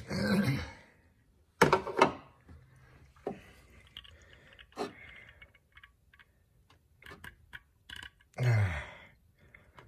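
Scattered light clicks and taps of metal parts being handled as a camshaft actuator solenoid is wiggled loose from its bore in the cylinder head.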